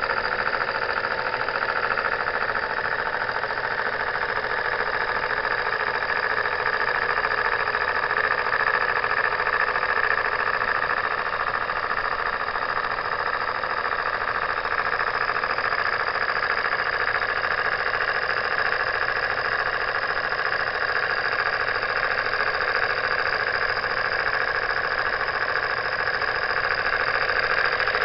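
Jensen #55 live steam engine running steadily at a fast, even beat, driving a small coffee grinder with nylon gears through a belt.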